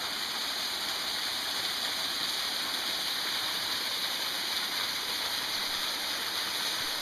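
Water falling from a partly frozen spring waterfall, a steady even splashing hiss.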